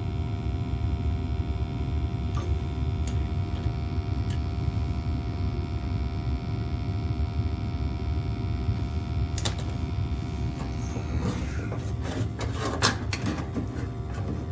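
Gas-fired hot water boiler running, a steady low rumble with a mains-type hum. Scattered clicks and handling noises come in after about nine seconds.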